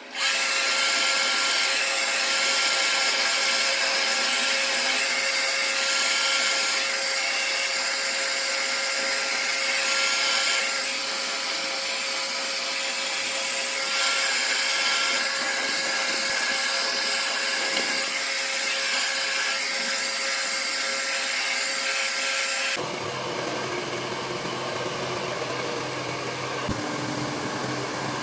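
Taiff Style hair dryer switched on, running with a steady whoosh of air and a motor whine. About five seconds before the end, the sound changes to a quieter, lower whir.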